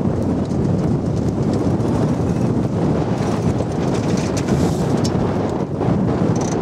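Strong wind buffeting the microphone on a sailboat's deck: a loud, steady, gusting low rumble.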